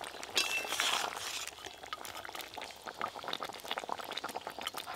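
Fish curry gravy bubbling at the boil in a metal pot, with a metal spatula stirring fried snakehead fish pieces into it: a louder stretch of stirring and sloshing in the first second or so, then steady small bubbling pops.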